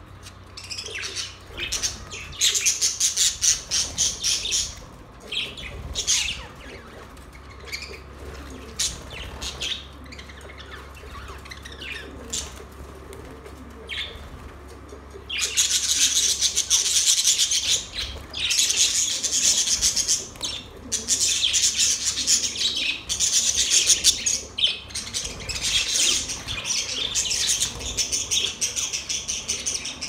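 A flock of budgerigars chirping and warbling, sparse at first with a burst of chatter a few seconds in, then dense, continuous chatter from about halfway through. Wings flap now and then as birds move about.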